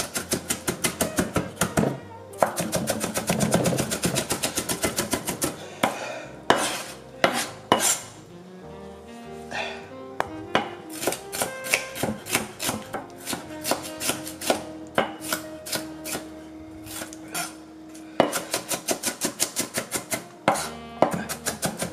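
Kitchen knife chopping vegetables on a cutting board: quick runs of strokes, several a second, broken by short pauses.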